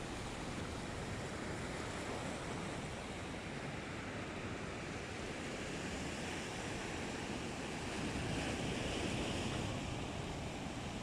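Atlantic surf washing against a rocky, pebbly shore, a steady rush of sea noise that grows louder for a moment about eight seconds in, with wind buffeting the microphone.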